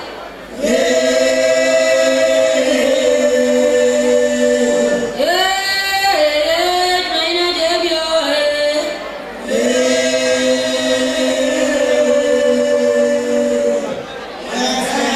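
A choir singing in long held notes, phrase after phrase of about four to five seconds with short breaks between.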